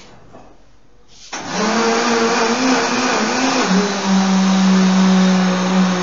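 Countertop electric blender switched on about a second in and running at full speed, blending a thick batter of eggs, condensed milk, grated coconut and grated cheese. Its motor hum wavers, then drops a little and holds steady.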